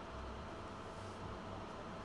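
Steady hiss with a low hum from a hot-air rework tool blowing heat onto the charging port to melt it free.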